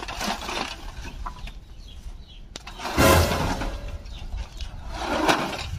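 A long wooden stick prodding and scraping through dry leaves and debris, with a louder ringing knock about three seconds in as it strikes a rusty metal drum.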